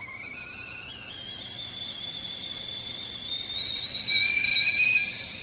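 Stainless steel stovetop whistling kettle starting to whistle as the water comes to the boil: a thin whistle that rises in pitch and grows louder, with a second, lower tone joining about four seconds in.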